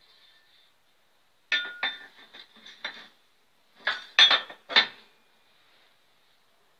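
Steel parts of a homemade metal shaper clinking and knocking against each other as they are handled. About five sharp, ringing clinks come first; after a short pause come four more, louder ones.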